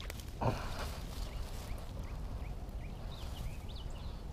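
Faint, short high-pitched chirps repeating several times a second from about a second in, over a steady low rumble. A brief thump comes about half a second in.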